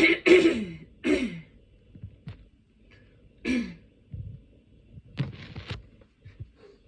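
A woman's cough from a head cold, in a painful fit: three quick coughs in the first second and a half, another about three and a half seconds in, then a throat-clearing about five seconds in.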